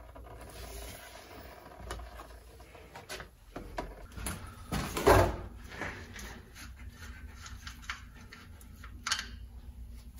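Hand-tool handling noises at a car axle's oil filler plug: scattered clicks and knocks, with one louder clunk about five seconds in. A faint low steady hum runs underneath from about halfway.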